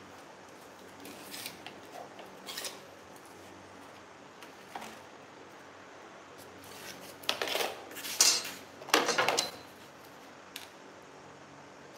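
A retractable tape measure and a metal ruler handled on cardboard sheets: a few light metallic clicks, then three short rasping scrapes between about seven and nine and a half seconds in, the loudest sounds.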